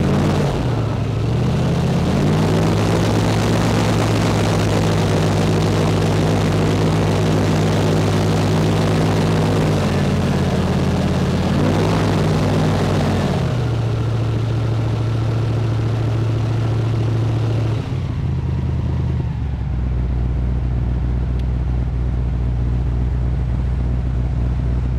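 Engine of a vehicle driving along, running steadily, its pitch dipping and climbing again near the start and once more around twelve seconds in. The hiss over it fades about halfway through, and the engine settles to a lower, steady hum for the last several seconds.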